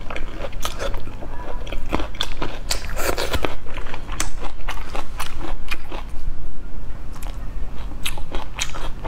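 A person chewing marinated prawn: wet, irregular crunching and clicking mouth sounds, thickest about three seconds in, over a low steady hum.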